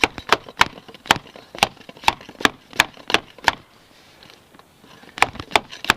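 Repeated sharp knocks, about three a second, of a PVC pipe used as a makeshift crown race installer being struck to seat the crown race on a bicycle fork; after a pause of about a second and a half, three more knocks near the end.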